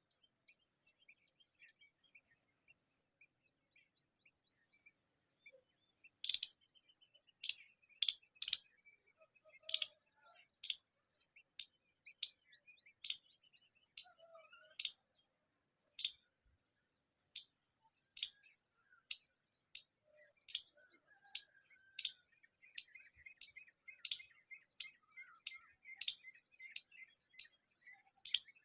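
A bird repeating a short, sharp, high call about once a second, starting about six seconds in. Faint chirping runs beneath it.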